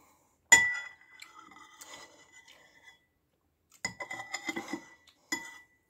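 Metal spoon clinking against a soup bowl: one sharp clink about half a second in that rings on for a couple of seconds, then a run of quick clinks and scrapes around four seconds in, and one more clink near the end.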